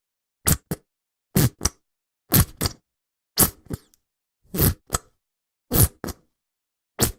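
Ketchup squeezed out of a squeeze bottle in sputtering splats, about seven squeezes a second or so apart. Each is a loud splat followed at once by a shorter, weaker one.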